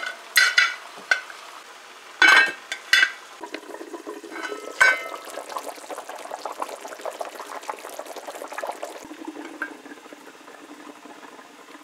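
Duck curry bubbling at a simmer in a large metal pot, with a metal spoon clinking against the pot several times in the first five seconds as it is stirred. Near the end the bubbling turns duller as the lid goes on.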